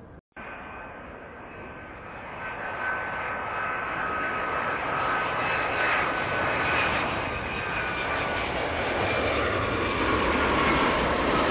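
Boeing 757 jet engines on final approach with landing gear down: a steady jet rumble with a high whine, growing steadily louder as the airliner comes closer.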